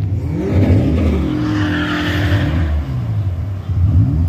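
Cars racing past at speed with their engines at high revs. The engine note climbs over the first second, then a loud rush of tyre and air noise peaks about two seconds in as they pass close and fades away.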